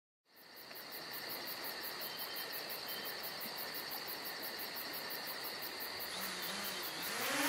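Insects chirping: a steady, pulsing cricket-like chorus with a high, continuous trill. Near the end a motor starts spinning up with a rising whine.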